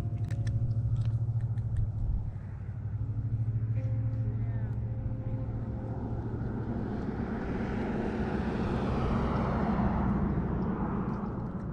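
Low, steady rumble with a vehicle passing by: its noise swells from about six seconds in, peaks, and fades near the end. A few sharp clicks sound in the first second.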